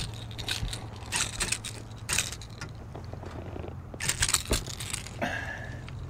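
Irregular clicks, rattles and knocks of a freshly landed spotted bass being handled and unhooked in a boat: the fish and the popper's hooks knocking against the boat. There is a louder flurry about four seconds in, over a low steady hum.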